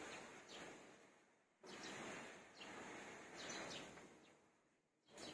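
Faint outdoor background noise that swells up suddenly and fades away several times, with a few faint bird chirps.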